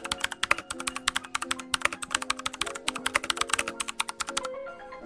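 Typing on a budget i500 mechanical keyboard with clicky Switchmaster switches, clones of Cherry MX Blues: fast, quite loud key clicks that stop about four and a half seconds in. Background music with held notes plays underneath.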